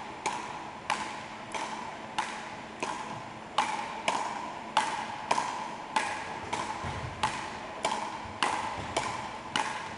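Frescobol paddles striking a small ball in a fast back-and-forth rally, a sharp tock roughly every 0.6 seconds, each hit ringing briefly.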